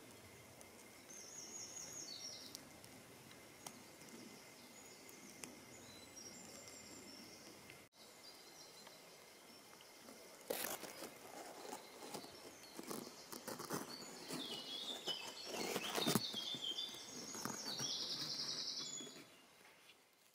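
Outdoor ambience with birds singing in short high trills, several times. From about halfway through, rustling and clicking noises join in and grow louder toward the end.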